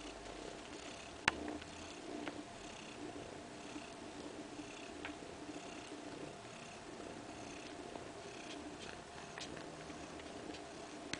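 Siberian cat purring steadily while nursing her kittens, with a single sharp click about a second in.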